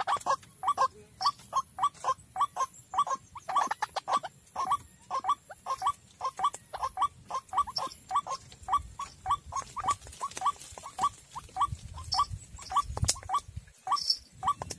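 White-breasted waterhen call: a long steady series of short, repeated notes, about three a second.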